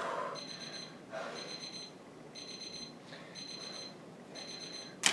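Digital timer alarm beeping in quick high-pitched groups about once a second, signalling the end of the timed workout. Breathing sounds between the beeps, and a sharp click near the end.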